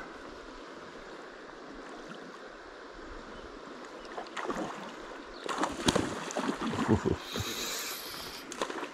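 Shallow river running over stones, a steady rush of water. About halfway through come irregular knocks and clatter, several close together, loudest near the end.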